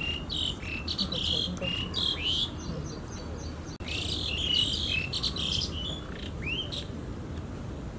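Birds chirping repeatedly in short, high calls and quick sweeping notes, several overlapping, over a low steady rumble. The sound drops out briefly a little before four seconds in.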